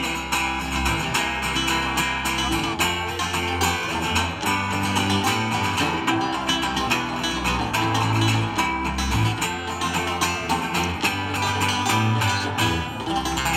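A live guitar-and-bass duo plays an instrumental break of a song. A strummed guitar runs over low, held bass notes, with no singing.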